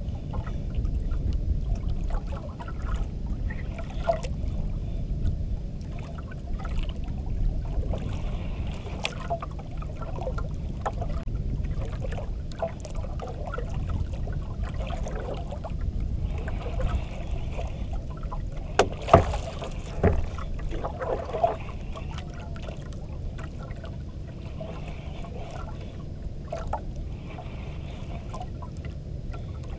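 Steady low rumble of wind and water around a small banka outrigger boat at sea, with a few sharp knocks about two-thirds of the way in.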